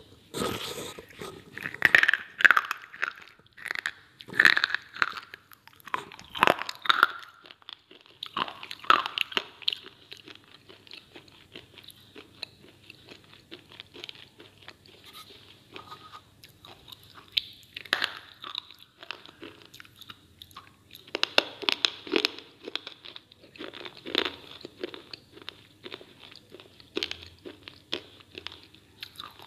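Dry slate pieces being bitten and chewed close to the microphone: crisp crunches and crackles coming in bunches, heavy in the first third and again past the middle, with a sparser stretch between.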